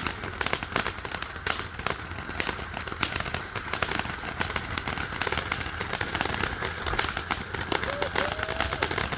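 500-gram Koi Fish fountain firework spraying: a steady loud hiss packed with rapid crackling pops.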